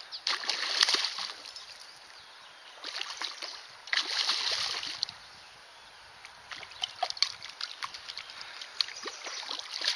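Hooked brown trout thrashing and splashing at the surface of a shallow stream while being played on light line, in short bursts near the start and again about three to five seconds in.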